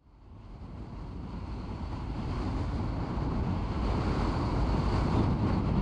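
Car driving on a paved road: steady tyre and wind noise over a low rumble, fading in from silence and growing steadily louder.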